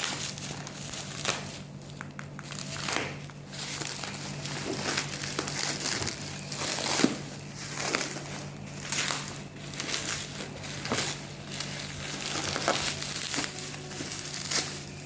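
Packaging crinkling and rustling in irregular handfuls, with sharp crackles, as the wrapping is pulled off a new PCP air rifle during unboxing.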